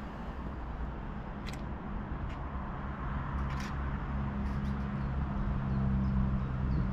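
A train in the station running with a steady low hum that slowly grows louder, with a few short clicks over it.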